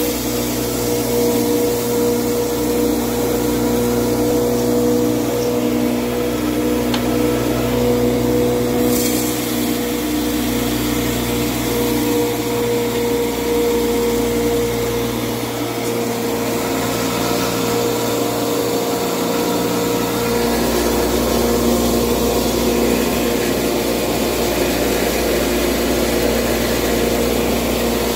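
Hammer mill running steadily while grinding maize kernels fed from its hopper: a continuous machine hum over a grinding noise.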